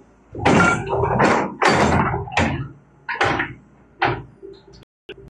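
Hitachi excavator bucket digging into rocky soil: a series of about six loud, gritty scrapes and clatters of rock and dirt, about half a second each. The sound cuts off suddenly near the end.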